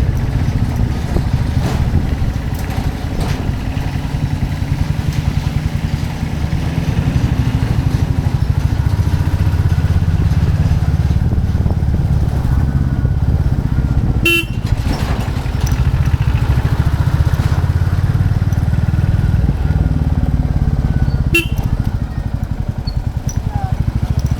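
Royal Enfield Classic 350's single-cylinder engine running under way, a steady low thumping that swells and eases a little with the throttle. Two brief sharp sounds cut in about 14 and 21 seconds in.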